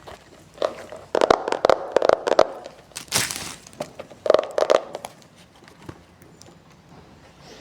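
Plastic wrapping crinkling and crackling in bursts as a new book is unwrapped and handled, with a few sharp clicks and knocks.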